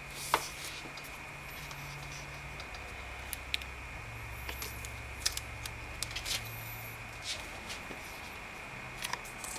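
Faint handling noises as a MacBook Pro laptop is lifted out of its cardboard box and its lid is opened: scattered small clicks and rustles of the aluminium case against the box packaging. A steady faint hum lies underneath.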